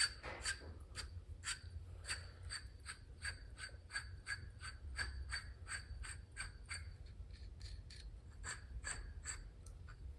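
Ratchet wrench clicking steadily, about three sharp metallic clicks a second with a brief pause near the end, as a nut is worked down a paint-clogged thread on an anti-roll bar link.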